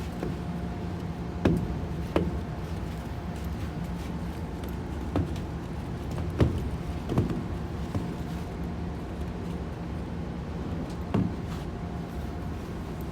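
A steady low hum, like an engine or motor running, with about seven short knocks or thumps scattered through it.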